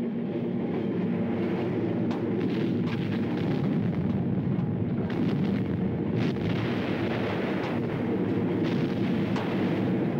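Steady heavy industrial rumble of machinery, with a few sharp metallic clanks scattered through it.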